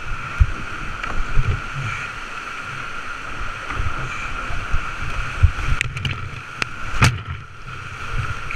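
Whitewater rapids rushing and churning around a creek kayak, picked up by a head-mounted GoPro, with irregular low thumps of water and paddle strokes. A few sharp knocks come near the six- and seven-second marks.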